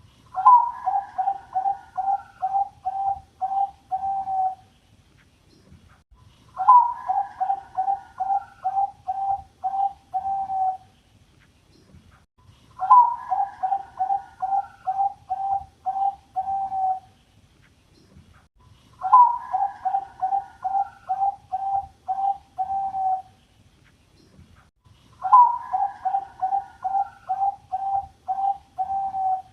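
A Bangkok-type perkutut (zebra dove) singing its song five times: each phrase opens with a higher note and runs on in a rhythmic string of about nine short, even coos lasting some four seconds, with a pause of about two seconds between phrases. The last phrase is cut off at the end.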